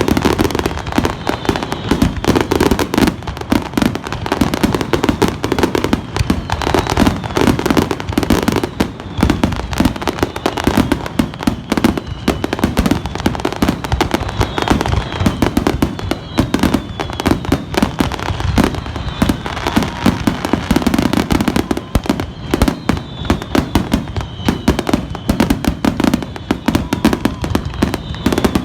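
Fireworks going off in a continuous barrage: a dense run of bangs and crackles, many each second, with no pause.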